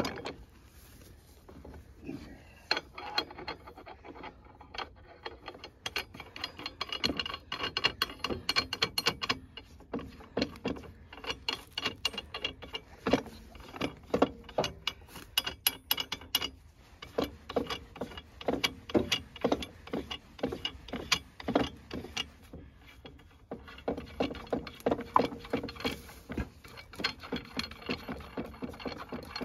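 Rapid, uneven metallic clicking and clinking from the steel parts of a hydraulic track pin press being fitted by hand: nuts run onto the threaded rods and the frame knocked against the track link. There is a short lull about three quarters of the way through.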